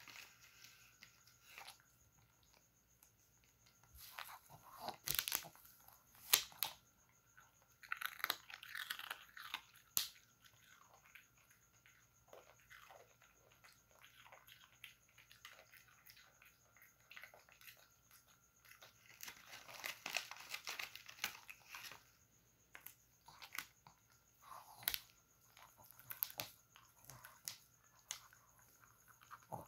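A Shih Tzu–Pekingese cross dog crunching and chewing small hard biscuits in scattered bursts, with the plastic sheet on the table crinkling.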